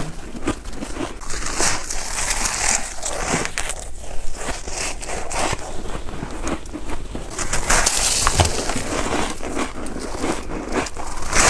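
Close-up crunching of freezer frost being bitten and chewed, a dense crackling with several louder crunching bites, one near the end.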